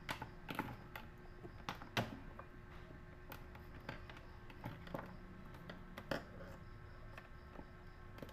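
Irregular light clicks and taps of small parts and tools being handled during bench work, over a faint steady hum.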